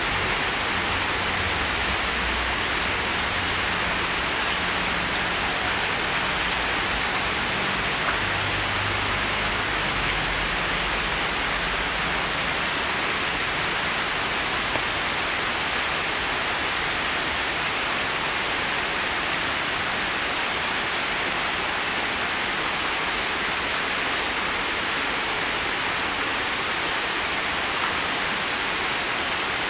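Heavy rain falling steadily on wet stone paving and forest: an even hiss of drops with no let-up.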